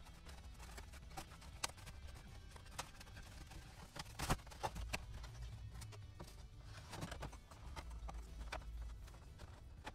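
Irregular light knocks and clicks of small laser-cut wooden wing parts being handled and set down on a workbench, over a low steady hum. The sharpest knock comes about four seconds in.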